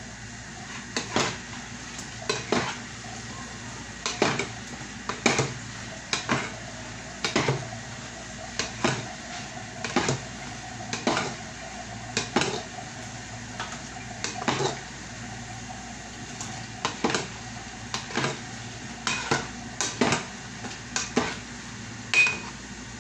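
A metal cooking utensil knocking and scraping against a metal cooking pot while food is stirred, with sharp clinks about once a second in an uneven rhythm, over a steady low hum.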